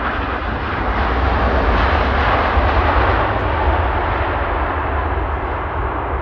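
Jet engines of a landing Lufthansa airliner, a loud steady roar with a deep rumble that eases off slightly toward the end.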